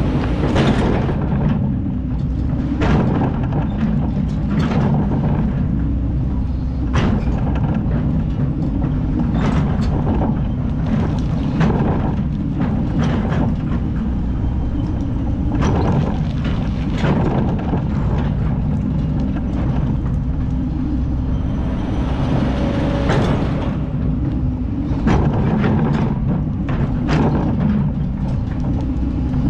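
Kobelco hydraulic excavator's engine running steadily under load, with irregular knocks and scrapes as the bucket digs into hard, rocky black sand.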